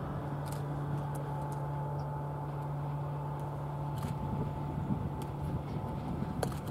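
Distant diesel locomotive engine running steadily as the train approaches, a low hum with a fainter higher tone above it; the low hum fades about five and a half seconds in.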